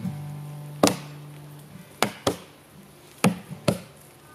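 Axes chopping into the flat face of a large log to hollow out a dugout canoe, with several people striking in turn. About five sharp blows land at uneven intervals.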